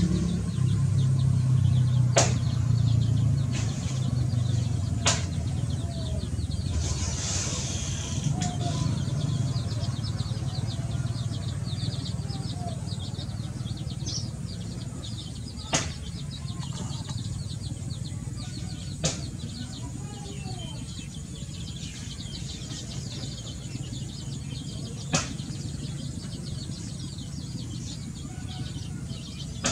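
Outdoor background: the low engine rumble of a passing vehicle fading away over the first several seconds, with a light, fast ticking throughout and a handful of sharp clicks.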